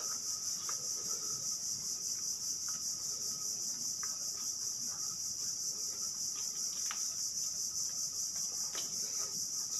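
Steady, high-pitched chorus of insects, with a few faint clicks here and there.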